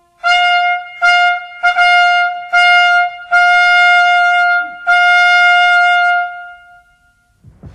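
A trumpet fanfare jingle: six notes on the same high pitch, the first four short and the last two held longer, dying away about a second before the end.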